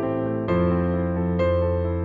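Background music: soft piano or electric piano chords, with new notes struck about half a second in and again near the end.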